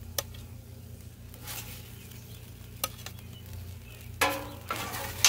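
Metal spatula scraping and clicking on the steel top of a Blackstone griddle as fish filets are lifted off, over a faint sizzle. A couple of sharp taps early on, and a louder scrape near the end.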